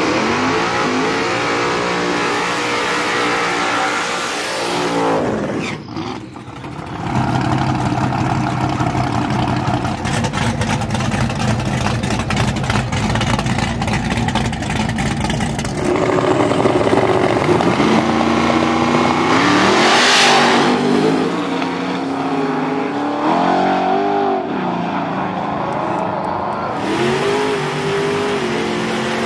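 Drag race cars at the starting line, their engines revving up and down in short stabs. About seven seconds in comes a long, loud, rough stretch of hard engine running as cars launch. About twenty seconds in there is a sharp rising whine, and more short revs follow near the end.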